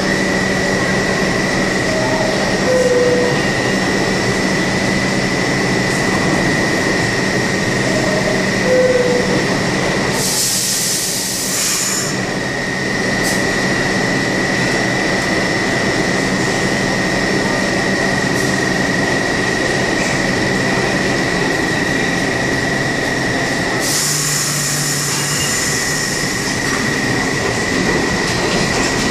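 New York City Subway train standing at the platform with a steady high whine and hum. A two-note descending chime sounds twice, a burst of hiss comes as the doors close about ten seconds in, and near the end another hiss and the motors starting as the train pulls out.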